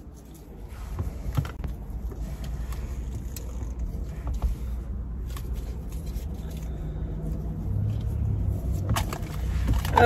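Rustling, scraping and light knocks of someone moving about in a car seat and handling things, over a low steady rumble inside the car.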